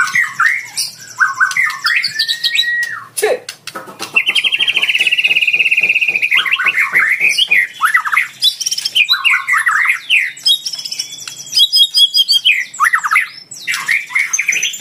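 White-rumped shama (murai batu) singing hard in the challenging 'fighter' style: a fast, varied run of whistled notes, rapid rattles and a long buzzy trill of about two seconds.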